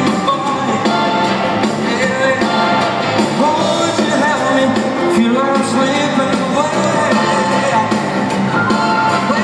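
A live band plays an upbeat rock-and-roll song while a male lead singer sings, heard from the arena seats.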